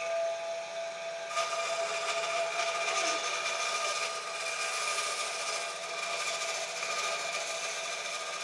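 Electric power tool running at a steady high-pitched whine. About a second in, a broad rushing noise joins it as the tool starts working the wood.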